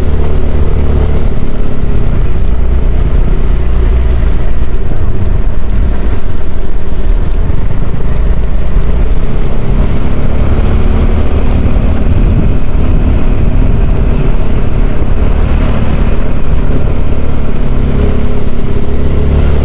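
Motorcycle engine running under way, with wind rushing over the microphone.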